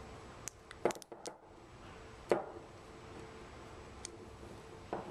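Small sharp clicks and taps of stainless-steel sampler parts being handled while a seal is fitted, a few scattered over the seconds with the loudest about two seconds in, over a faint steady hum.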